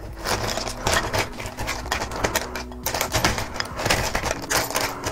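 Chunks of dry ice and chocolate malt balls clattering in a bowl as they are stirred with a plastic scoop: a rapid, irregular run of clicks and knocks.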